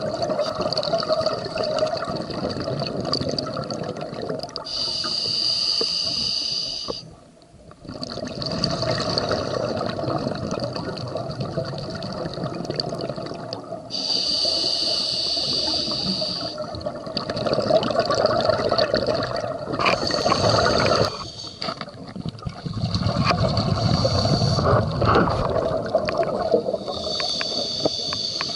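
Underwater breathing through a scuba regulator: several hissing inhalations through the regulator alternate with the bubbling of exhaled air. The breaths come every few seconds, with a brief pause about seven seconds in.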